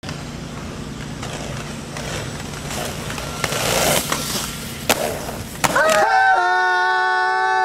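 Inline skate wheels rolling on pavement with a rough rumble and a few sharp clacks. About six seconds in, the rolling gives way abruptly to a steady, held two-note tone.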